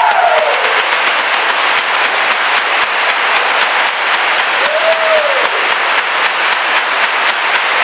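A large crowd applauding, a dense, steady mass of clapping. A pitched call from the crowd falls away in the first half-second, and a short rising-and-falling call rings out about five seconds in.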